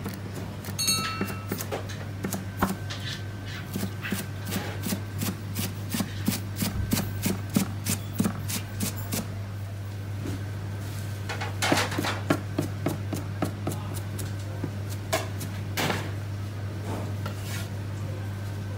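A Chinese cleaver chopping cabbage on a plastic cutting board, a few strokes a second. After about nine seconds the chopping thins to scattered clusters of strokes.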